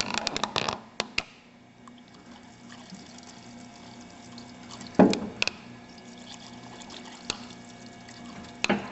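A few sharp metallic clicks and clinks, then one louder knock about five seconds in and a few more clicks near the end, over a low steady hum from the lathe. These are the handling sounds of the tap and steel workpiece at the machine after tapping.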